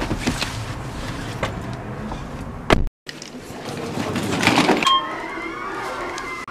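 Bags rustling and being handled at a car, ending in a sharp knock; then, after an abrupt cut, a suitcase being wheeled along and a short beep.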